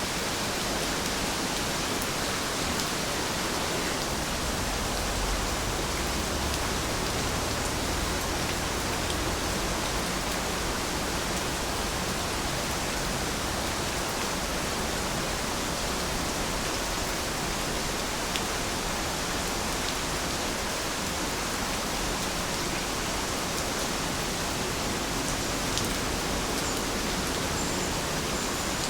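Steady rain falling: an even hiss, with a few separate drops ticking now and then.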